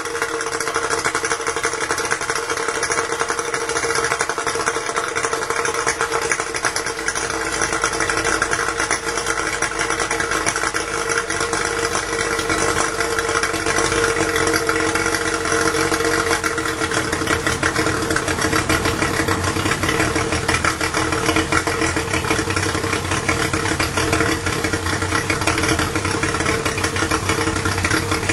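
Yamaha outboard motor running steadily at idle.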